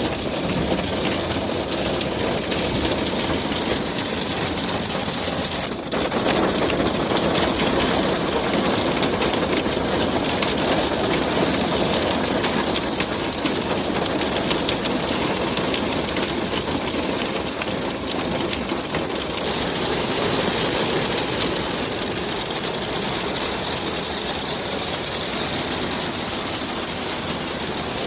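Hail drumming on a van's metal roof and body, a dense steady clatter. It dips briefly about six seconds in, then carries on.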